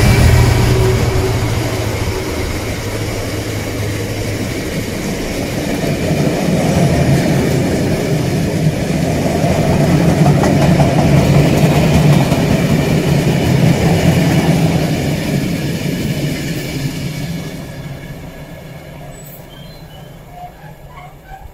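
Long rake of cement tank wagons rolling past on steel wheels and rails. The Class 66 diesel locomotive's engine drone fades out in the first couple of seconds. The wheel rumble swells in the middle, then dies away over the last few seconds as the train recedes.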